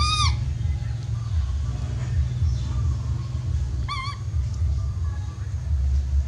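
Baby macaque crying: two high, arching calls, a longer one at the start and a shorter wavering one about four seconds in, over a steady low rumble. The uploader puts the crying down to its missing its mother and needing warmth.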